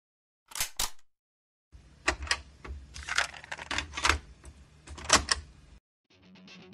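Intro sound effect: two quick sharp snaps, then an irregular run of sharp clacks over a low rumble for about four seconds, cutting off suddenly.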